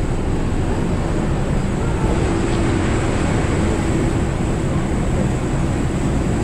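Steady apron noise beside a parked Boeing 747-8 jet airliner: a constant low roar with a thin, high, steady whine over it. Faint voices of people nearby are mixed in.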